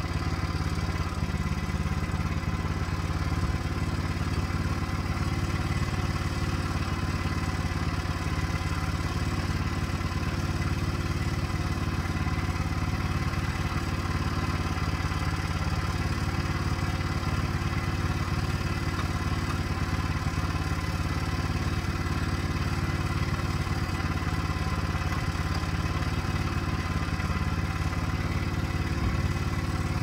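Wood-Mizer LX25 portable sawmill's engine running steadily at a constant speed, with no change in pitch or load.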